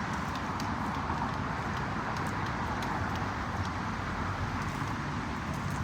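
Two-seater bicycle being ridden on pavement: a steady rush of tyre and moving-air noise with a few faint ticks.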